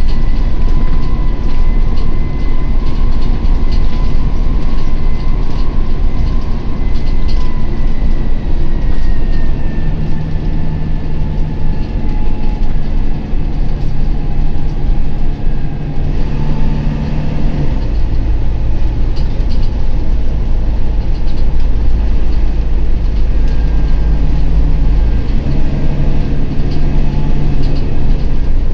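Volvo B9TL double-decker bus running, heard from the upper deck: a heavy rumble from its 9.4-litre six-cylinder diesel with a faint drivetrain whine that shifts in pitch, over constant rattling and knocking of the body and fittings on a bumpy road. The rumble grows heavier for several seconds past the middle.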